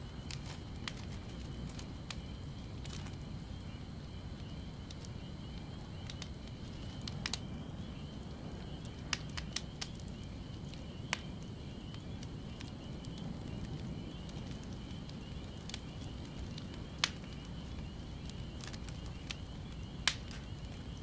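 Outdoor evening ambience: a low steady rumble under a thin, continuous chirring of insects, with a few sharp crackles scattered through it.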